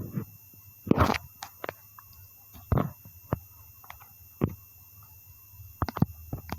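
Scattered sharp knocks and clicks, about a dozen at uneven intervals, over a low steady hum.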